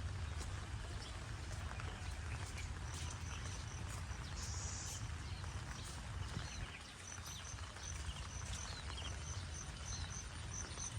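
Outdoor ambience with a steady low rumble and an insect chirping in short, evenly spaced high pulses, about two a second, mostly in the second half.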